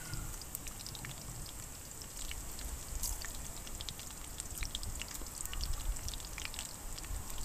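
Irregular small, crisp crackles of someone chewing battered, deep-fried mantis shrimp, the soft shell crunching.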